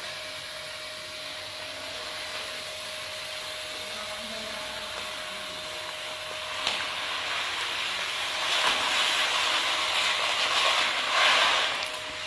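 Fine white grain pouring in a stream from a cloth bag onto a heap, a steady hiss that gets louder past the halfway point and stops near the end. A faint steady hum runs underneath.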